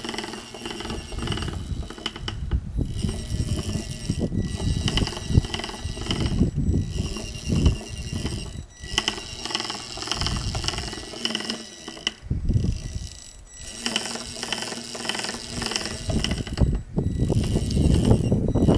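The MY1020 24 V brushed DC motor of a DIY self-balancing unicycle, with its motor controller, whining at several steady high pitches, cutting out briefly about six times, over an uneven low rumble that grows louder near the end.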